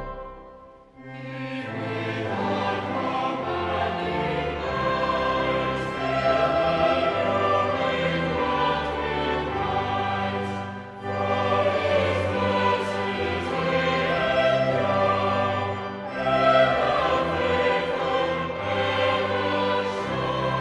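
A choir singing a hymn with instrumental accompaniment. It breaks off briefly about a second in, then runs on in long phrases.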